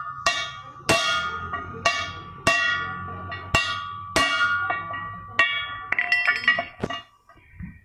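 Hammer blows on the steel yoke of a truck driveshaft while its cross joint (universal joint) is knocked out: about a dozen sharp strikes at roughly two a second, each ringing on like a bell, with a quicker run of lighter metal clinks about six seconds in.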